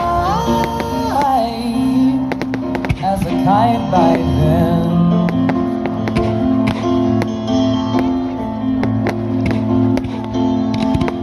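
Music with singing, with many short sharp cracks scattered through it.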